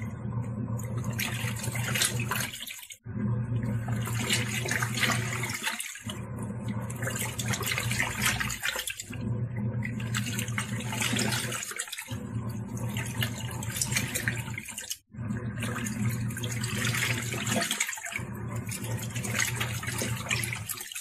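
Tangarus portable washing machine washing: its motor hums steadily while water churns in the tub. It stops briefly about every three seconds as the wash action changes direction.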